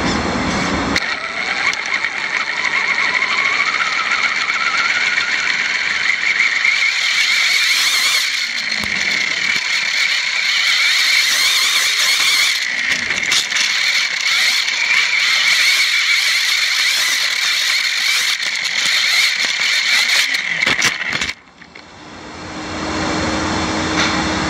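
RC desert buggy's motor and drivetrain whining at speed, heard from a camera on the buggy, the pitch climbing over the first few seconds as it accelerates, with dirt hissing under the tyres. A few knocks come about three seconds before the end and the whine cuts off suddenly as the buggy ends up on its roof.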